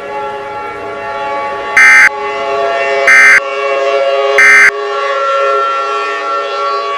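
Three short bursts of Emergency Alert System SAME data tones, about a second apart: the end-of-message signal that closes an alert. Under them runs a steady droning sound made of several held tones, siren-like, which cuts off suddenly at the end.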